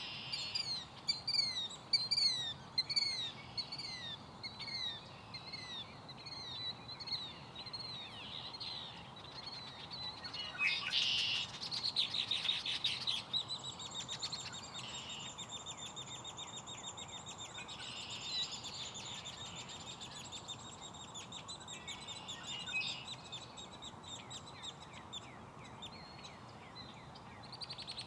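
Killdeer calling rapidly and repeatedly with shrill, rising notes. About halfway through, a long buzzy trill from another marsh bird takes over.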